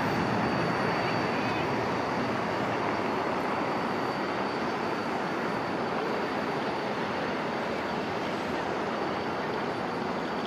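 Embraer E175's twin GE CF34-8E turbofans at takeoff thrust: a broad jet roar that fades slowly as the airliner lifts off and climbs away, with a thin steady high whine running through it.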